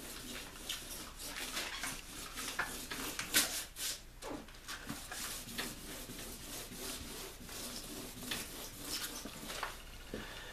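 Fine 600-grit sandpaper on a soft pad rubbed by hand over the painted canvas hull of a canoe, wet-sanding between finish coats before the final coat: a string of short, irregular scratchy strokes.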